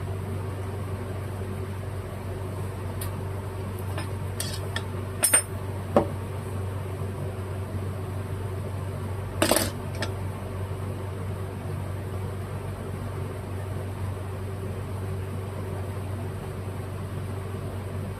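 Small metal carburetor parts and tools clinking as they are handled, with a few sharp clinks about five and six seconds in and a brief rattle near the middle, over a steady low hum.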